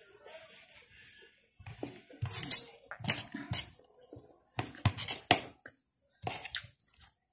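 Metal spoon and fork clinking and scraping against a plate, a string of sharp clinks from about two seconds in, with chewing sounds between them.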